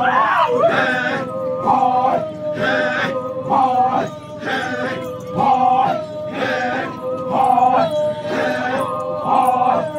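Many men's voices chanting a Sumi Naga war-dance chant: a short call rises and falls about once a second over a steadily held note.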